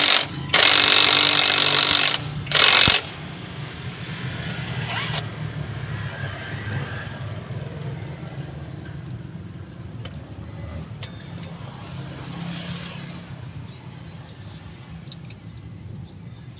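A power tool running in two short loud bursts near the start, the first lasting about a second and a half and the second a brief blip. After that comes a steady low hum with faint high chirps repeating about once a second.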